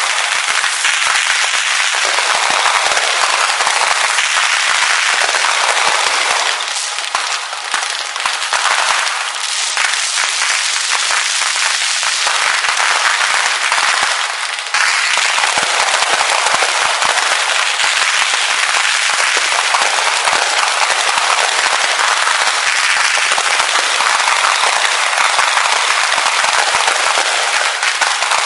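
Fireworks display: dense, continuous crackling and popping with many sharp cracks packed together. It eases off about a third of the way in and comes back suddenly about halfway through.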